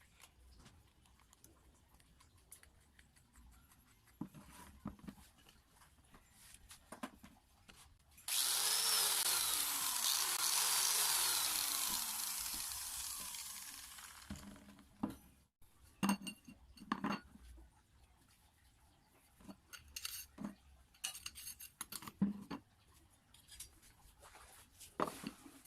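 An electric power tool switches on abruptly and runs at full speed for about four seconds, then winds down to a stop over a couple of seconds. Light clicks and knocks come before and after it.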